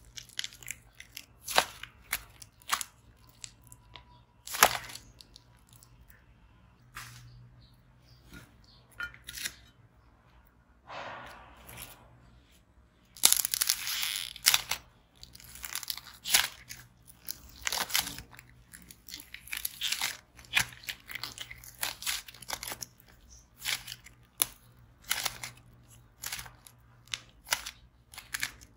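Soft white clay-slime being squeezed, stretched and torn by hand, giving irregular crackling pops and tearing sounds. The crackling is sparse early on, with quiet gaps, and comes thickest about halfway through.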